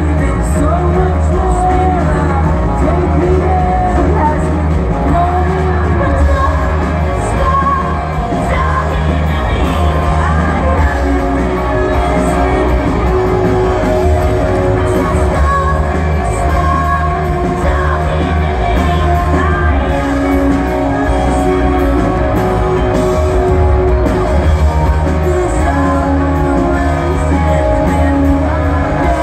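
Rock band playing live: a singer over electric guitars, bass and drums, heard loud and steady in a large hall.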